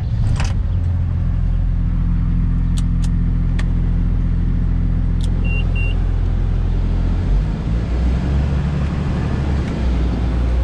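Combine harvester's diesel engine running steadily with a low hum, its note changing about seven seconds in. Two short high beeps sound about halfway through, with a few faint clicks.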